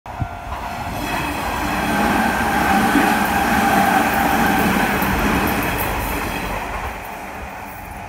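Electric commuter train running through a level crossing, growing louder to a peak midway and then fading as it passes. The crossing's warning bell rings steadily throughout.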